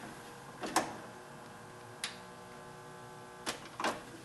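Sony five-disc CD changer with its tray open giving four sharp clicks from its front-panel buttons and tray mechanism: one about a second in, one about two seconds in, and two close together near the end. A faint steady hum follows the second click.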